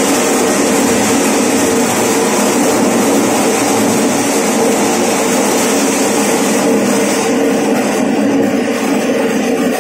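Electric mini maize sheller with a 1.5 HP single-phase motor running loud and steady under load as corn cobs are fed into it and shelled. The highest part of the noise thins out about seven seconds in.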